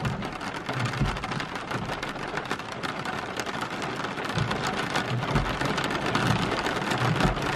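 Rain falling on a car's glass sunroof, heard from inside the cabin: a dense, steady patter of drops with a few low thuds.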